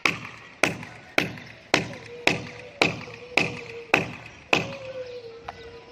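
Hammer driving nails into wooden formwork boards: nine steady blows about two a second, each with a short metallic ring, stopping about four and a half seconds in.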